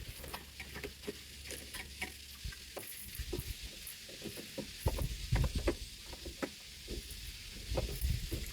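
Scattered small clicks and rustles of sailboat rigging being handled as the main sheet is clipped on and run through its fittings, with heavier low thumps and rumbles from about halfway through.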